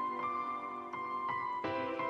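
Soft electronic background music with sustained chords and a slow melody line. A new chord comes in near the end.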